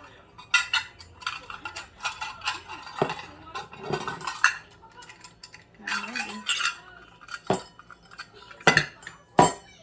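Kitchen utensils and dishes being handled: irregular clinks and sharp knocks, with short scraping, rustling stretches between them.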